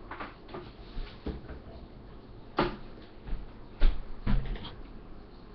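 A few sharp, irregularly spaced knocks and clicks of things being handled in a kitchen, like cupboard doors or dishes, the loudest a little under four seconds in.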